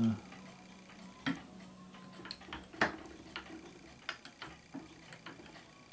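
Small, irregularly spaced metal clicks and taps as a screwdriver and loose parts are worked against the cast-iron frame of an 1879 B. Eldredge Automatic sewing machine during reassembly, the loudest about three seconds in.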